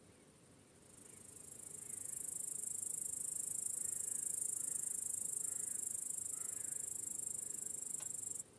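Crickets chirping: a dense, high-pitched insect trill swells up about a second in, holds steady, and cuts off abruptly near the end, over a fainter steady chirping that continues throughout. A faint single click comes just before the trill stops.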